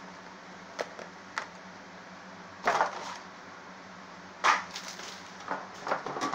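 Handling noises of the lunchbox and its contents being moved about: a couple of light taps or clicks, then several short rustling scrapes.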